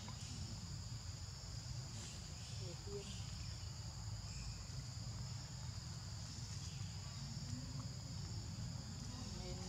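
Insect chorus in the grass: a steady high-pitched shrill of two even tones, over a low rumble.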